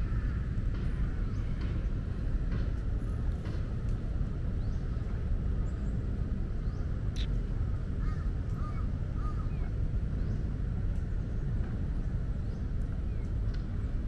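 Steady low rumble of outdoor city background noise with birds calling faintly now and then.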